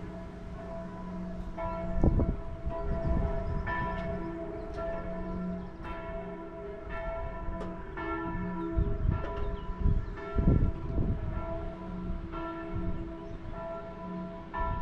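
Several church bells pealing, with overlapping strikes of different pitches about once a second. A few low rumbles cut in around two seconds in and again near the middle.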